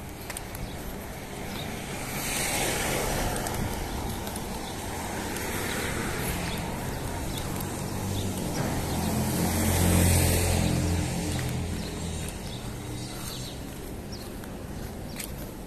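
Cars passing on a street: tyre and engine noise swells up and fades away three times. The loudest pass, about ten seconds in, carries a low engine hum.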